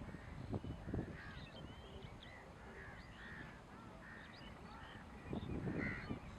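A flock of wild ducks calling: many short, nasal, honking calls overlapping, with thin higher whistles among them. Low rumbling noise comes in about a second in and again near the end.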